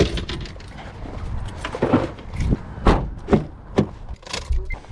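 A run of short knocks and rustles, several about half a second apart, over a steady low rumble.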